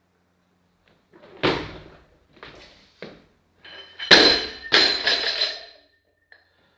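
A loaded Olympic barbell with bumper plates is dropped onto the platform, about 92 kg. It lands with a heavy crash about four seconds in, hits again as it bounces, and the bar and plates ring. A sharper thump comes about a second and a half in.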